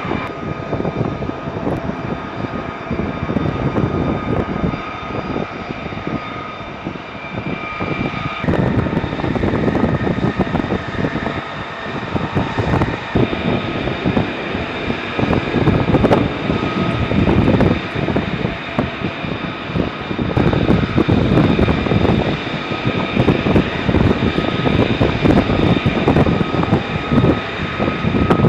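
F-35B's Pratt & Whitney F135 turbofan running on the ground as the jet taxis: a steady high whine over a dense, rough rumble. The sound shifts abruptly about eight and a half seconds in.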